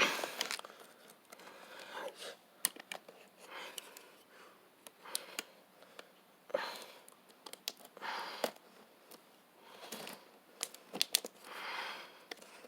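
Cardboard box and packaging of a ceiling fan being opened and handled: scattered sharp clicks and knocks with short bursts of rustling and scraping every second or two.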